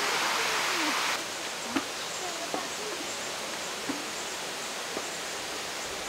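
Rushing water, a steady hiss, cuts off abruptly about a second in. Quieter open-air forest ambience follows, with a few light knocks.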